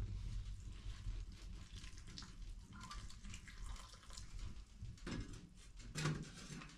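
Hot water poured in a stream from a metal kettle into a bowl of dried wood-ear mushrooms to soak them. Two knocks near the end.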